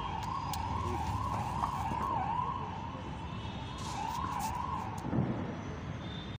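A siren warbling, its pitch rising and falling about twice a second, stops about five seconds in; a short knock follows.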